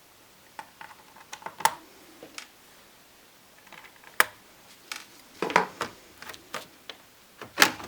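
Irregular sharp plastic clicks and taps from handling a laptop's plastic bottom access panel and its screws, with the loudest knocks about four seconds in and near the end.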